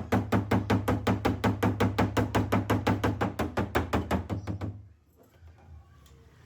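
Rapid, evenly spaced tapping, about six knocks a second, over a low steady hum; it stops abruptly about five seconds in.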